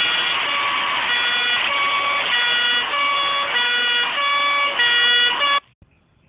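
Loud, distorted horn-like melody: a run of held notes that jump in pitch about every half second, cutting off suddenly about five and a half seconds in.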